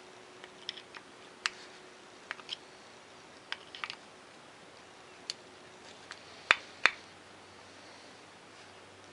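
Scattered light clicks and taps of small hand tools on a lawn mower carburetor as the jet and emulsion tube are worked out of it, with two louder sharp clicks close together about six and a half seconds in.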